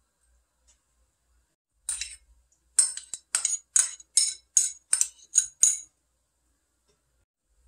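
Metal spoon tapping against a cut-glass bowl to knock minced garlic out of it: one clink about two seconds in, then a quick run of about nine bright taps.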